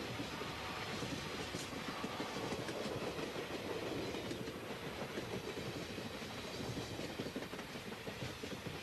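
A train rolling along the rails: a steady rumble of wheels with many short clacks, easing slightly near the end.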